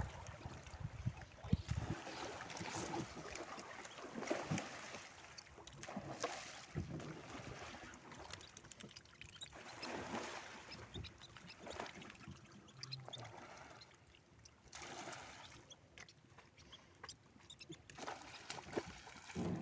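Water sloshing and splashing around a small boat at sea, swelling and fading unevenly, with scattered small knocks.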